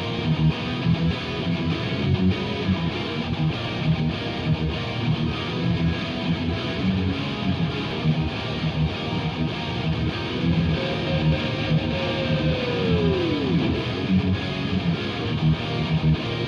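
Background rock music with strummed electric guitar over a steady beat; a single sliding pitch drop sounds about two thirds of the way through.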